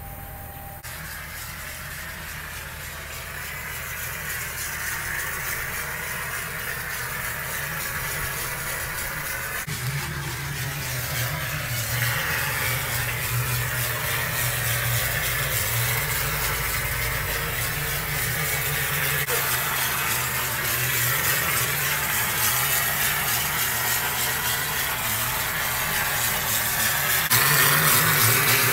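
Mortar plastering machine running: a steady low mechanical hum with a broad hiss over it, growing gradually louder and stepping up near the end.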